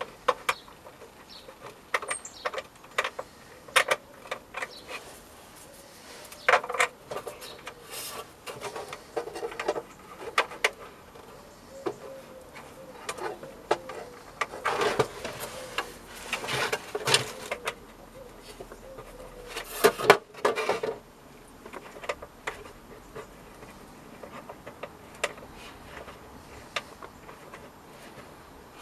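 Plastic parts of a camera bird feeder being handled and fitted together by hand: irregular clicks, taps and scrapes, with denser clattering bursts and the loudest one about two-thirds of the way in.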